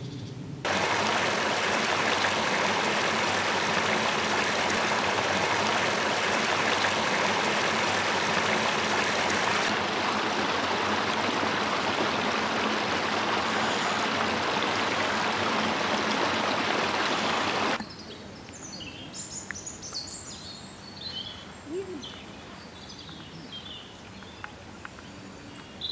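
Steady, loud rush of running water that stops abruptly about two-thirds of the way through. After that, quiet open-air background with small birds chirping.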